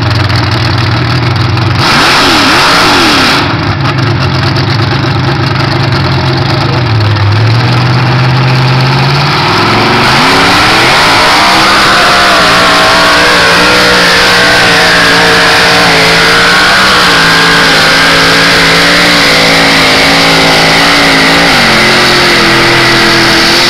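Loud engine of a flat-fender Jeep mud buggy: a steady low note at first, then about ten seconds in the revs climb hard and stay high, wavering up and down as it ploughs through the mud pit under load, and drop back shortly before the end.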